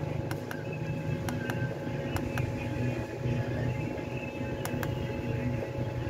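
Steady low hum with a faint steady whine, and a handful of small clicks from the buttons of a mini amplifier's USB/FM player board being pressed. No music or radio comes through the speaker, even with the volume full: the amplifier's sound fault.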